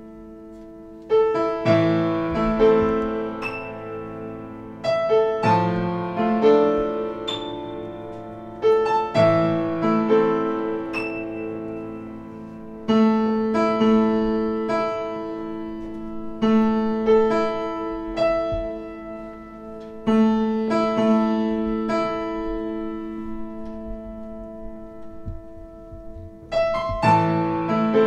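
Blüthner piano played slowly: chords struck in groups of three or four, each left to ring and fade before the next group, the first coming about a second in.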